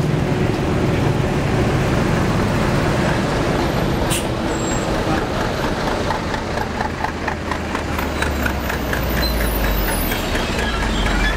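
Diesel engine of a Kramat Djati intercity coach running as it drives past close by, its engine note fading after a few seconds, over road traffic. A sharp click about four seconds in.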